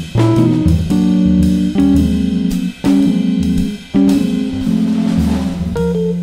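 Background music: guitar over bass, with a beat about once a second.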